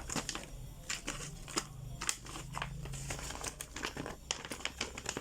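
A paper user manual being handled and unfolded, with irregular crinkles and sharp crackles throughout.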